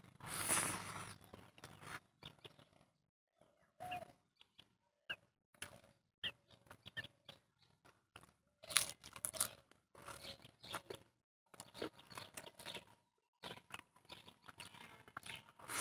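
Close-up eating sounds: irregular bursts of chewing and mouth smacking on hand-fed rice and chicken curry, with crunching of crisp papad and fingers squishing rice on the plate.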